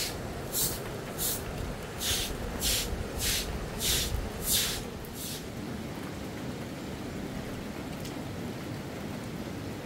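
Rhythmic swishing strokes, about three every two seconds, that stop about five seconds in, over a steady rushing noise.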